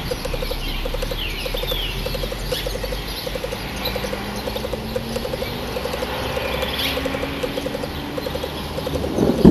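Birds chirping outdoors, with a low call of quick pulses repeated over and over under a steady background hum. A louder low-pitched noise swells up near the end.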